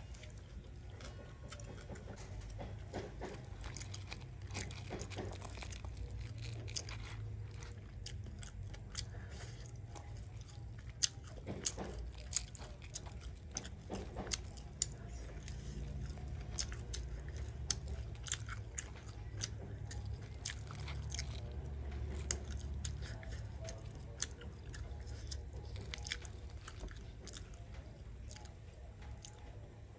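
Crackling and crisp clicks of whole grilled fish being pulled apart by hand, its charred skin and flaky flesh breaking off the bones.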